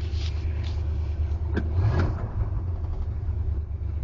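1980 Ford F-150's 351M V8 idling steadily, heard from inside the cab, with a couple of light clicks near the middle.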